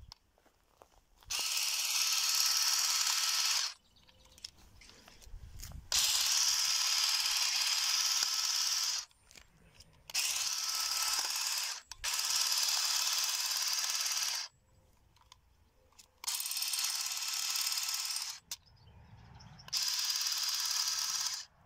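Gardenic battery-powered grass-and-shrub shears with the hedge-trimming blade fitted, running in six short bursts of a couple of seconds each as they trim a conifer shrub, switching on and off abruptly with a steady, high buzzing.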